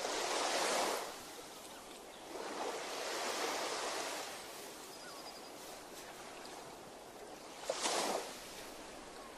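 Small sea waves washing onto the shore in surges that swell and fade every few seconds, with a shorter, sharper splash near the end.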